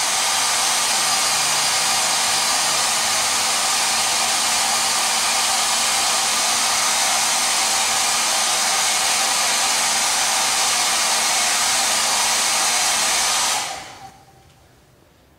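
Conair 1875 hand-held hair dryer running steadily on low heat, blowing over freshly dyed leather to dry it. It switches off about two seconds before the end and quickly fades out.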